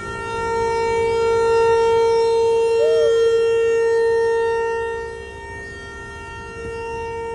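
Outdoor tornado warning siren sounding a steady, unwavering tone during a siren test. It is loud for the first few seconds, fades about five seconds in, and swells back up shortly after.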